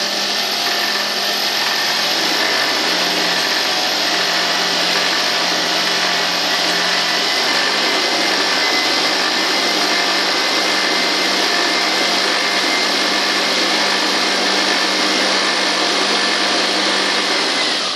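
Industrial straight-stitch sewing machine running steadily at speed while its bobbin winder fills a bobbin, a constant motor hum with a low steady tone. It stops near the end, once the bobbin is full.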